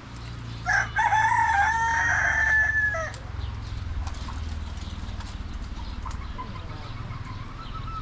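A rooster crowing once: a single loud call of about two and a half seconds, starting just under a second in, over a low steady rumble.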